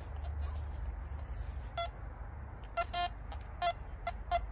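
Quest Q30+ metal detector beeping as its search coil is passed over a freshly dug hole: a run of short beeps at one pitch, beginning about two seconds in. This shows the target is still down in the hole.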